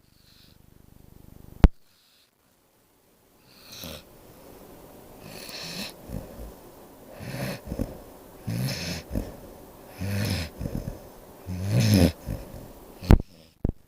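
A sleeping pet snoring, a rasping snore on each breath about every one and a half seconds, the snores growing louder from about four seconds in. A sharp click near the start and two more near the end.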